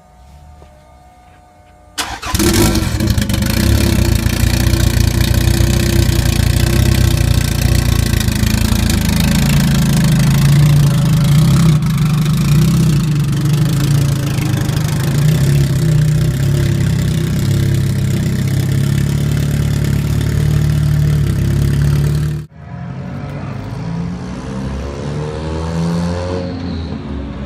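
A Toyota Celica GT-Four ST205's turbocharged four-cylinder engine starting about two seconds in, then running loudly at low speed with a steady low note. Near the end, after a sudden cut, a Celica accelerating, its engine pitch rising, dropping at a gear change and rising again.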